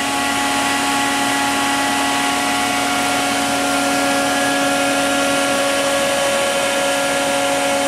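Steady electrical hum and whir from the open electrical cabinet of a powered-up Haas TL-1 CNC lathe, with several constant tones over an even hiss.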